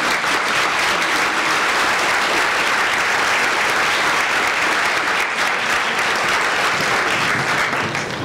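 Audience applauding, a steady clapping that tapers off near the end.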